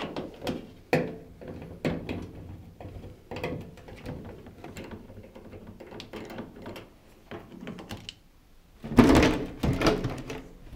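Hand screwdriver turning out the screws that hold a washing machine's top panel, a run of small clicks and knocks. About nine seconds in, the loudest sound: the top panel scraping and knocking as it is slid back and lifted off.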